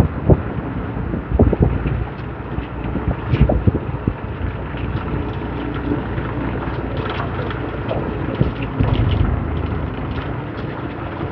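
Wind buffeting the microphone over a steady low rumble, with scattered short knocks.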